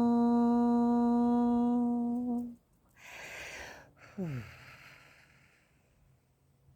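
A woman's voice humming one long steady tone, which stops about two and a half seconds in. Then comes an audible breath and a short sigh that slides down in pitch and trails off into breath.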